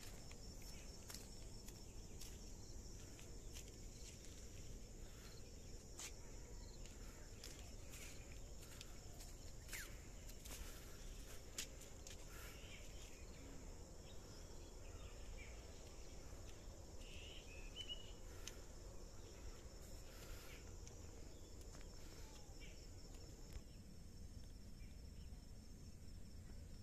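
Faint outdoor field ambience: insects trilling steadily at a high pitch, with a few short bird chirps around the middle and scattered light clicks.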